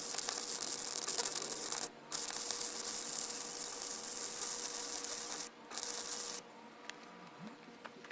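Harsh, hissing, rasping work noise in three stretches of a few seconds each, starting and stopping abruptly, with a faint steady hum underneath.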